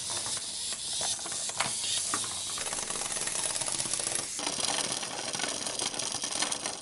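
Clockwork mechanism of a wind-up toy running: a rapid, dense whirring rattle of small gears and pawl as the mainspring drives it.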